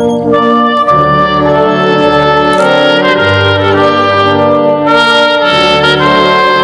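Loud brass band music, trumpets and trombones playing held chords that change every second or so.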